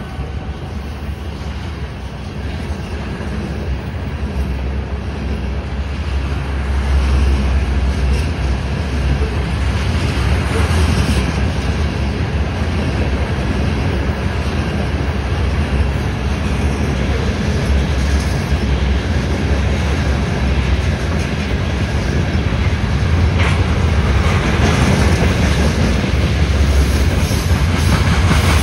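Open hopper cars of a CSX freight train rolling past close by: a steady low rumble and clatter of steel wheels on the rails, growing louder about seven seconds in.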